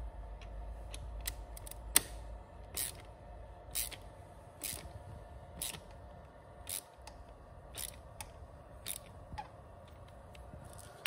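Ratchet wrench on a socket extension tightening a screw under a motorcycle crankcase: a short ratcheting rasp on each back-swing, about once a second.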